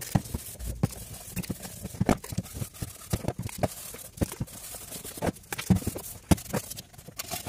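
Irregular clicks and knocks, with light rustling in between, of small computer parts being handled and fitted.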